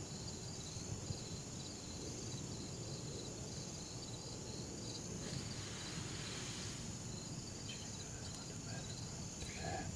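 Evening insect chorus: a steady high trill with a pulsing chirp beneath it, going on without a break.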